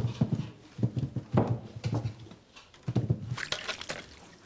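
Mangoes being handled in a heap, knocking against one another in a run of dull, irregular thuds. Near the end comes water splashing and trickling as mangoes are washed in a basin.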